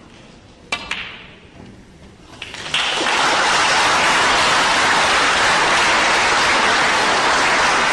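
A sharp click of the cue striking a snooker ball, then from about three seconds in a loud, steady round of audience applause as the black goes down.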